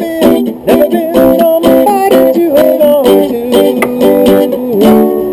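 Guitar playing an instrumental passage of a song, plucked chords and notes in a quick, steady rhythm, with a strong stroke near the end that rings on.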